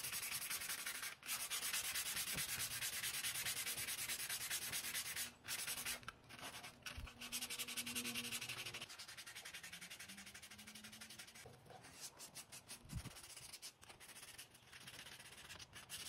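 Sandpaper rubbed by hand over bare, stripped mahogany in quick back-and-forth strokes, a dry scratching. It runs steadily at first, then turns quieter and comes in shorter spells about halfway through.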